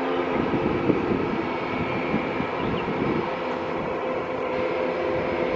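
Airbus A400M's four TP400 turboprop engines running on the ground, a steady drone with a held tone in it. The tone weakens about half a second in and comes back strongly after about three seconds.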